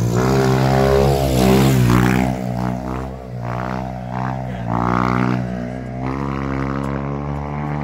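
Modenas Kriss 2 motorcycle with an aftermarket titanium exhaust, revving hard. Its engine note climbs over the first two seconds, then drops and rises again several times as the throttle is worked.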